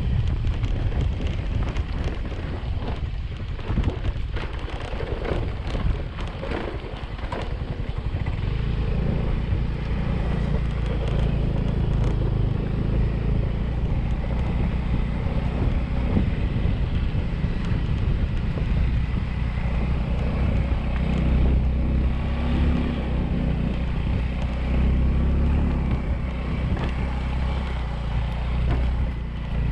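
Yamaha 125 cc automatic motorbike engine running while riding, with wind buffeting the microphone. For the first several seconds the engine is buried under rough wind noise and a few knocks, then from about eight seconds in a steady engine note comes through.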